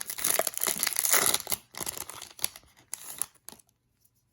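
A trading-card pack's foil wrapper being torn open and crinkled: dense crackling for about the first second and a half, then a few lighter crackles that die away.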